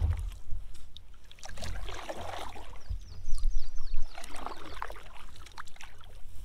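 Double-bladed kayak paddle dipping and pulling through lake water, a splashing stroke every second or so, the loudest about halfway through.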